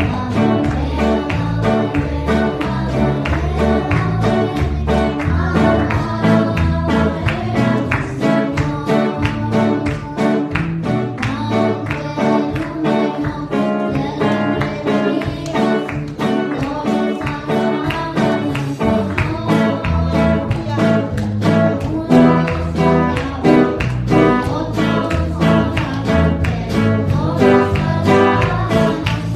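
A girl singing into a microphone over instrumental backing music with a steady beat.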